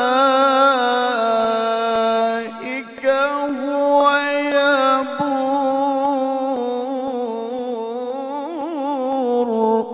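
Solo male qari reciting the Quran in melodic tilawah style: long, ornamented held notes that waver and step between pitches, with a brief break for breath about three seconds in, and the phrase ends just before the end.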